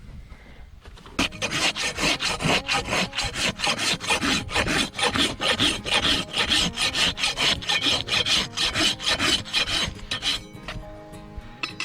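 A hoof rasp being drawn over a donkey's overgrown hoof in quick repeated scraping strokes, starting about a second in and stopping shortly before the end. Background music comes in near the end.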